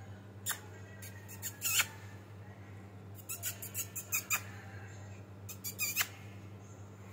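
Cat claws scratching and scraping on a perforated plastic laundry basket as two cats paw at it, coming in four short clusters of sharp, scratchy, squeaky sounds.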